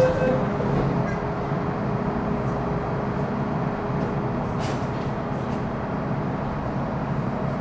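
Metro Cammell M-Train electric multiple unit running through a tunnel, heard from inside the car: a steady rumble of wheels on rail. The whine of its GEC GTO chopper traction control fades out in the first half second, and a brief hiss comes about halfway through.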